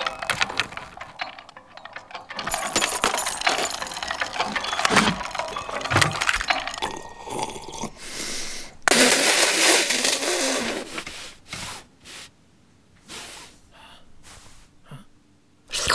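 Film sound effects of small household objects: a dense run of quick clinks and clicks, then a two-second hiss about nine seconds in, then a few scattered soft clicks.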